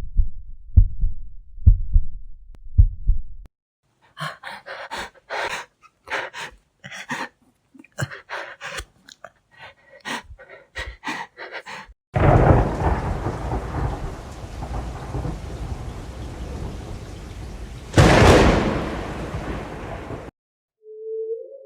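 A run of horror sound effects: slow, paired heartbeat thumps, then a string of irregular sharp crackles and scrapes, then about eight seconds of steady rain with a loud thunder crack partway through, cut off abruptly and followed by a steady hum-like tone near the end.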